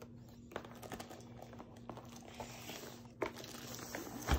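Rustling and crinkling of packaging as a rolled diamond-painting canvas is slid out of its tall cardboard box, with a couple of light knocks and a bump near the end.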